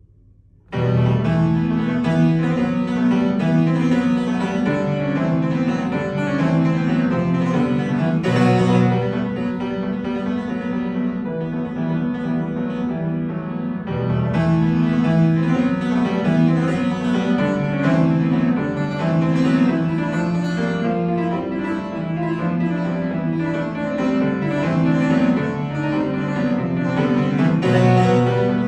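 Solo piano music that starts abruptly under a second in, with a busy repeating figure in the lower register, in a piece written to evoke the sound of the dutar.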